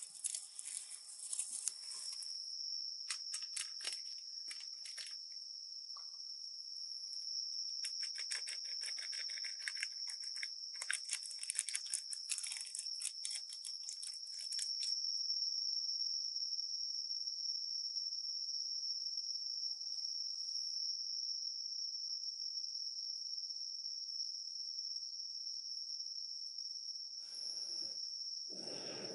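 Steady high-pitched drone of insects, with bursts of rapid crackling and crunching in the first half.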